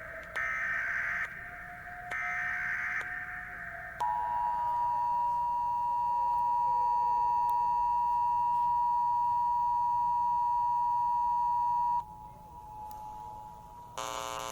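Emergency Alert System broadcast tones: three short screeching SAME data bursts, then the EAS two-tone attention signal sounding steadily for about eight seconds and cutting off abruptly. A fainter siren-like tone slowly rises and falls underneath. A harsh buzzing tone starts near the end.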